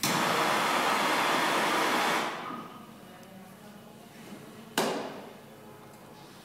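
A handheld gas blowtorch hissing loudly for about two seconds as its flame heats the tractor engine before starting, then fading out. A sharp knock follows about five seconds in, and another at the very end.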